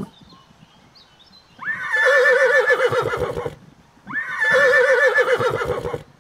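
Foal whinnying twice: two calls of about two seconds each, a couple of seconds apart, each starting on a rising note and going on in a quavering whinny.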